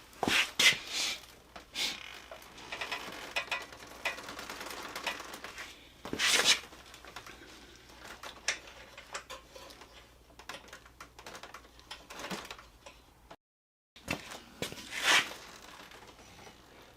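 Intermittent clicks, clanks and rustling of tools and parts being handled during hands-on work on a motorcycle's front end, with a few louder knocks.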